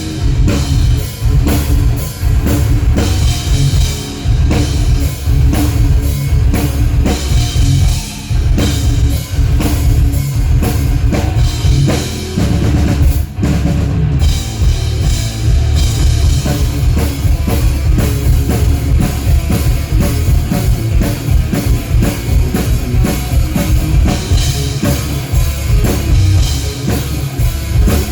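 A rock band playing loud and heavy, with the drum kit most prominent and guitar underneath, and a brief break about halfway through.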